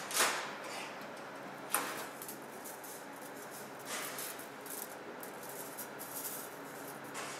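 Stainless-steel surgical instruments (scissors and clamps) clinking and jangling as they are picked up and handled in a bundle. Sharp clinks come just after the start, about two seconds in and about four seconds in, with lighter rattling in between.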